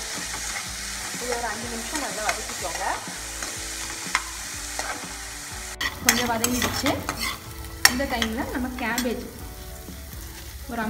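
Diced potatoes frying in oil in a kadai, sizzling while a steel spoon stirs them, scraping and clicking against the pan. The stirring gets louder about six seconds in.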